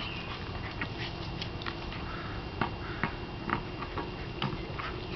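An Australian Cattle Dog mouthing and pawing at a ball on grass: scattered sharp clicks and scuffs of its teeth and claws on the ball.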